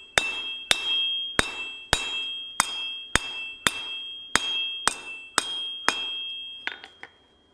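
Hand hammer forging red-hot steel on a 66 lb cast steel anvil, about two blows a second. Each blow sets the unbolted, unsilenced anvil ringing with a quite loud, high steady ring that carries over to the next blow. The blows stop a little after six seconds, then come a few light taps.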